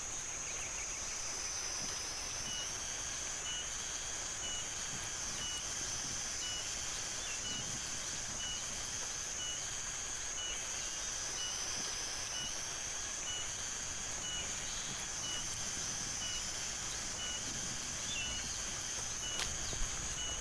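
Steady high-pitched insect drone from the surrounding farmland and forest, with a short high note repeating about twice a second through most of it.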